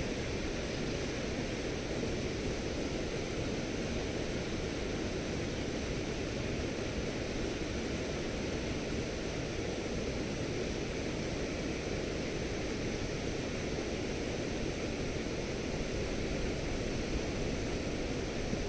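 Steady rushing of flowing river water, an even noise that neither swells nor breaks.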